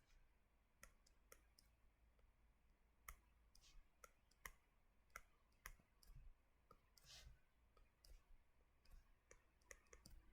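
Near silence broken by faint, irregular clicks and taps from drawing on a computer, about one or two a second, with a brief scratchy rustle about seven seconds in.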